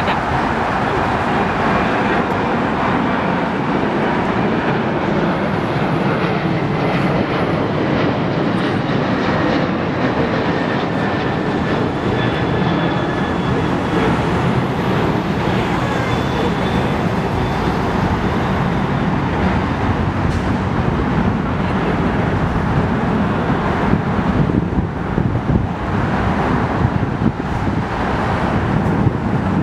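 Steady roar of airliner jet engines at the airport, with a faint turbine whine on top. The roar turns rougher and more uneven near the end.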